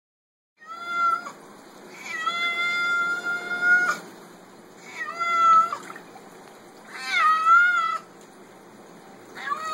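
A black-and-white long-haired cat meowing in protest at being bathed in a sink. It gives five long, drawn-out meows with pauses between them, the second held for about two seconds.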